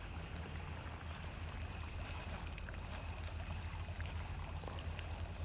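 Water lapping against a fishing boat's hull over a steady low hum, with faint scattered ticks from a baitcasting reel being cranked in.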